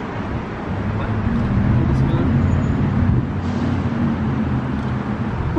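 A motor vehicle's engine running steadily with a low rumble that grows louder about a second in, over general road-traffic noise.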